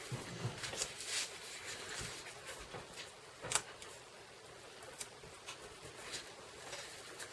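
Soft rustles and light taps of cardstock and tape being handled, with a sharper tap about three and a half seconds in.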